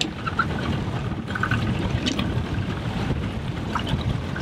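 Small boat under way at low speed: the low running of its Mercury 90 outboard under wind buffeting the microphone and water lapping against the hull.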